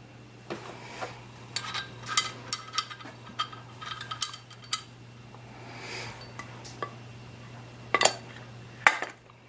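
Scattered clicks and clinks of Remington 870 shotgun parts being handled as the buttstock and spacer are fitted to the receiver, with two sharper knocks near the end. A steady low hum runs underneath and stops shortly before the end.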